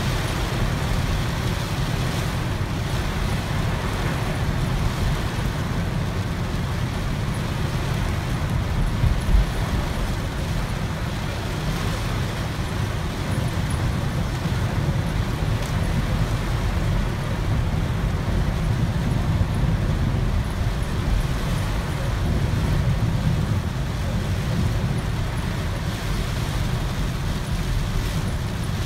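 Heavy rain on a moving car, heard from inside the cabin: a steady low rumble of road and engine noise under the hiss of rain on the roof and windshield. A brief louder thump comes about nine seconds in.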